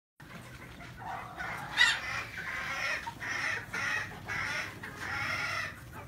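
Chickens clucking in a run of short calls, with one sharper, louder call about two seconds in.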